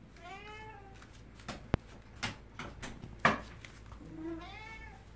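Domestic cat meowing twice, a drawn-out meow that rises and falls near the start and another near the end. In between come a few sharp knocks and clicks, the loudest about three seconds in.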